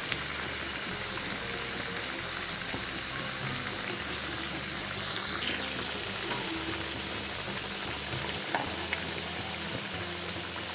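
Sweet corn vadas deep-frying in hot oil over a medium flame: a steady sizzle with small crackles and pops.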